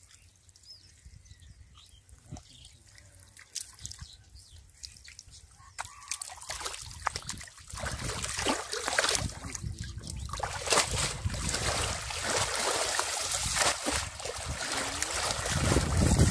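Water splashing and sloshing as a fishing net is shaken and washed in shallow muddy pond water to rinse the mud out of it. Only faint drips at first, then the splashing starts about six seconds in and grows louder toward the end.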